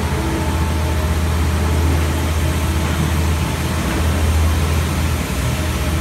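Heavy engine idling with a steady low hum, the sound of construction machinery running at rest.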